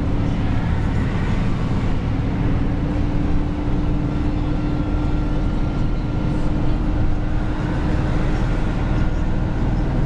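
Dump truck's diesel engine and road noise while cruising at a steady speed, a low rumble with an even engine drone that holds one pitch.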